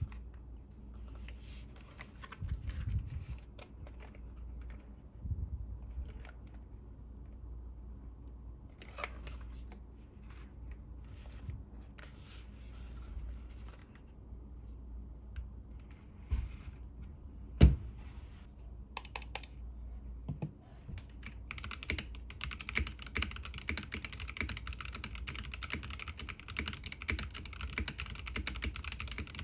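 Melgeek MADE68 magnetic-switch keyboard: scattered key clicks and one sharp knock about two-thirds through, then fast continuous typing near the end.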